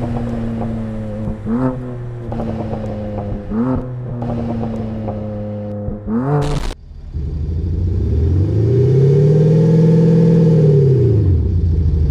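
Panthera Leo active sound generator on a Mercedes-AMG GLE 53 playing its simulated turbo straight-six sound: idling with three short throttle blips. After a cut about seven seconds in, its simulated V8 SUV sound makes one long rev that climbs, holds and falls back.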